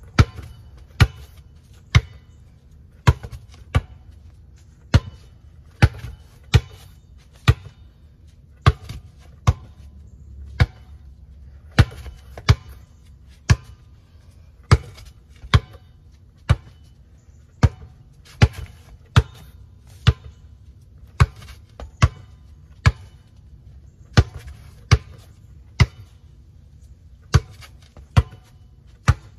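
A basketball dribbled hard, about one bounce a second at an uneven pace with brief holds: a hesitation-dribble drill.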